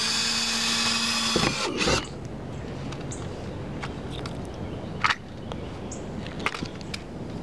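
Cordless drill running steadily for about a second and a half, drilling a pilot hole in a car's rear license-plate mount, then winding down and stopping. A few light clicks follow.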